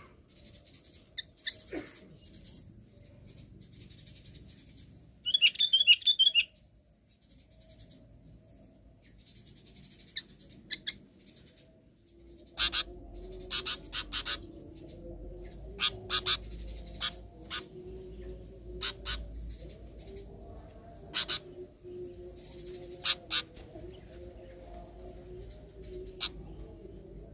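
Sooty-headed bulbul singing: a loud, short burst of quick chirpy notes about five seconds in, with fainter scattered calls around it. Sharp clicks repeat irregularly through the second half over a low steady hum.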